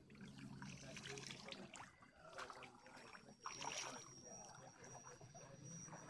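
Faint stream water trickling and splashing, with rustling from the handheld camera; a thin, steady high tone comes in about halfway through.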